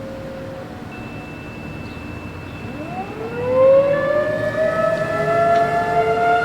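Outdoor civil-defense warning sirens, the nearest a Federal Signal Thunderbolt 1000, winding up for a test: about two and a half seconds in the pitch rises and levels into a steady wail. More distant sirens join at other pitches, after a few seconds of faint steady tones.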